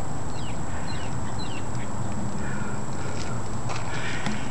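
Outdoor garden ambience: a steady rushing background with a thin high whine, and a few short bird chirps in the first two seconds.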